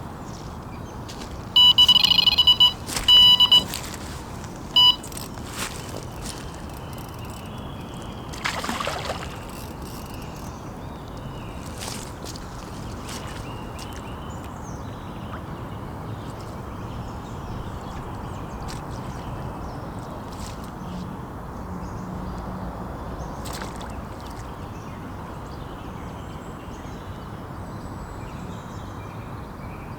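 Carp fishing bite alarm sounding several short bursts of electronic beeps in the first few seconds, then a brief rushing swish about eight seconds in, over steady outdoor background noise.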